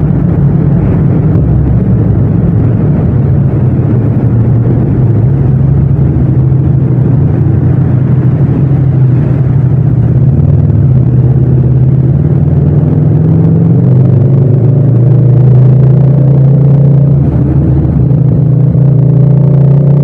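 Parallel-twin motorcycle engine running under way at a steady pitch, then climbing gradually in the second half as the bike speeds up.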